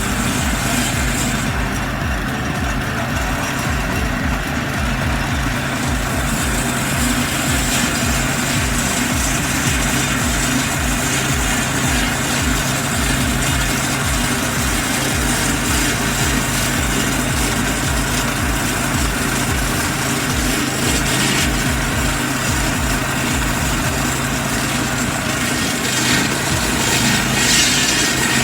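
A heavy machine's engine running steadily with a fast, low chugging, and a brief rush of noise near the end.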